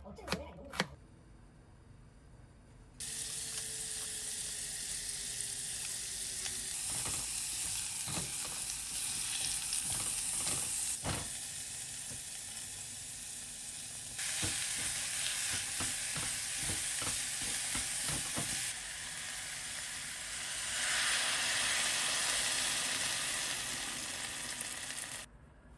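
Food sizzling in a hot frying pan, with the faint scrape and knock of a utensil stirring it. It is preceded by a few knife chops on a cutting board in the first second. The sizzle starts about three seconds in and stops abruptly near the end.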